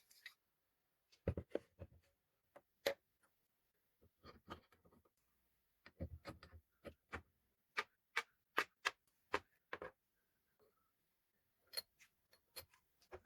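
Irregular sharp clicks and light knocks of small hard objects, some coming in quick clusters, with near silence between them.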